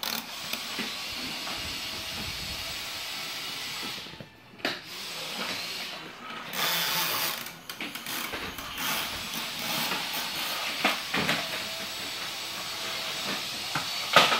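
Plastic toy trucks knocking and clattering on a wooden floor every few seconds, the loudest knock near the end, over a steady hiss.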